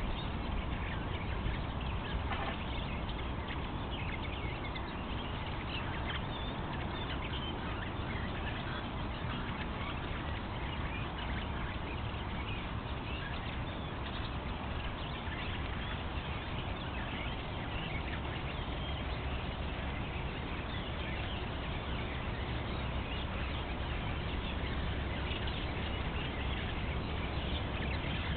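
Woodland bird chorus: many birds calling and singing at once, a dense steady mix of short calls, over a steady low background noise.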